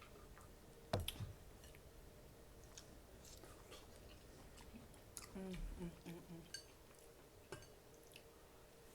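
A person chewing food close to the microphone, with scattered wet mouth clicks and a sharper knock about a second in. A brief low hum comes near the middle.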